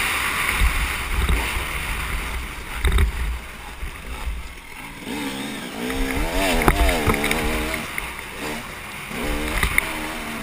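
KTM dirt bike engine revving up and down while riding a motocross track, pitch rising and falling most strongly in the middle, with wind buffeting the camera microphone and a few sharp knocks over bumps.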